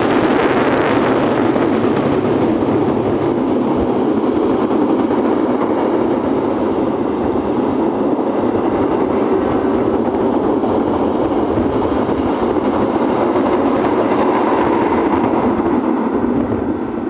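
Taksaka express train passing in heavy rain: a steady, loud rush of its wheels on the rails mixed with the downpour, easing slightly near the end.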